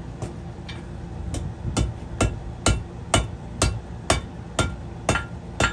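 Blacksmith's hammer striking a piece of horseshoe steel on an anvil, forging it into a knife. The blows come steadily about two a second, each with a short metallic ring, lighter at first and heavier from about a second in.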